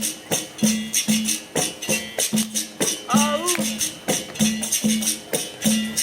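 Capoeira music from a percussion band: tambourine-like pandeiro jingles over a low pitched note struck in pairs about once a second. A voice call that glides in pitch comes briefly about three seconds in.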